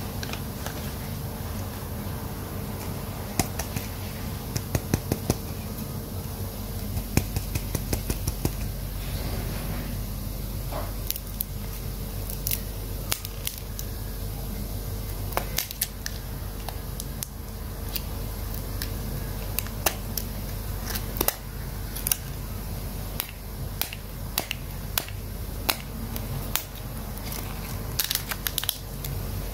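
Fingers picking at and peeling the plastic shrink-wrap on a plastic toy capsule, making scattered clusters of sharp crinkles and clicks over a steady background hum.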